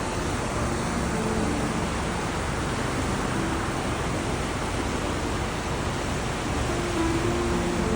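River swollen into flood after a typhoon, its water rushing in a steady, even noise.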